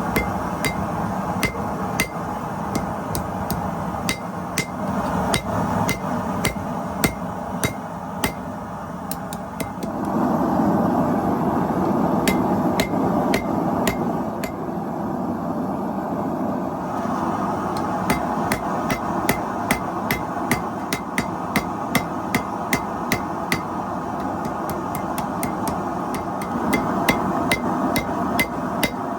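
Hammer forging steel on an anvil: a steady run of blows about three a second, each with a short metallic ring, over a constant rushing noise that swells for several seconds near the middle.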